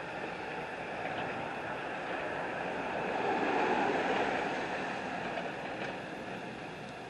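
A vehicle passing on the street, its noise swelling to a peak about halfway through and fading again, over a steady background rumble.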